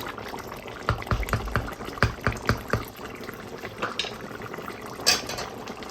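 Curry bubbling in a cooking pot: irregular wet pops and gurgles, thickest in the first half.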